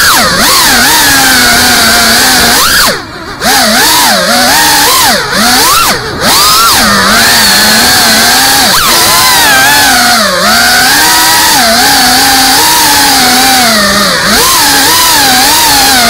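FPV racing quadcopter's motors and propellers whining loudly, the pitch constantly rising and falling as the throttle is worked. The sound briefly drops away about three seconds in and again about six seconds in.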